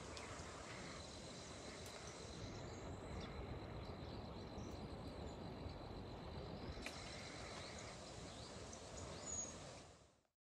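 Outdoor ambience: a steady rushing hiss with a thin, high, steady insect trill, fading out near the end.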